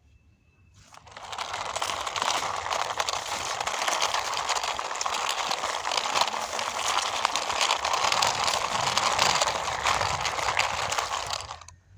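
Toy racing car pushed along by hand, its small plastic wheels rolling over gritty ground with a steady crackling crunch that starts about a second in and stops near the end.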